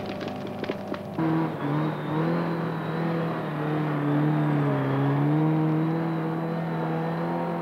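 Wheeled log skidder's engine running hard as the machine drags a load of logs, its pitch wavering slightly up and down. It cuts in abruptly about a second in, replacing a lower hum with scattered clicks.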